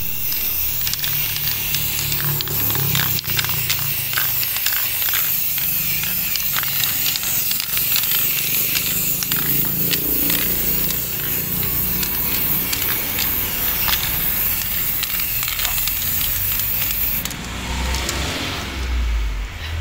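Aerosol can of black spray paint hissing steadily as it is sprayed, with a low rumble underneath. The hiss stops near the end.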